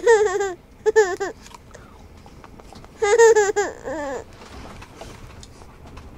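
Baby laughing in short, high-pitched bursts: two giggles at the start, then a longer laugh about three seconds in.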